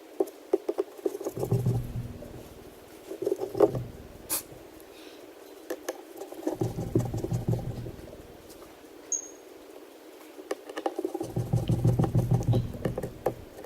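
Small clicks, taps and scraping from a precision screwdriver turning out the tiny screws of an iPad mini and the screws being set down, in three stretches of busier scraping with scattered single clicks between them.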